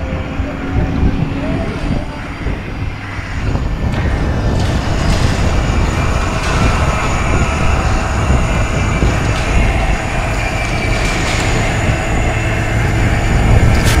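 Electric fishing reel's motor running steadily as it winds line in, a constant hum with a higher whine, starting about four seconds in, over wind and water noise.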